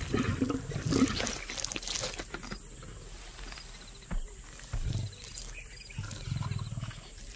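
Lions growling low in short spells, about three times, while feeding on a giraffe carcass, with scattered chewing and tearing sounds between the growls.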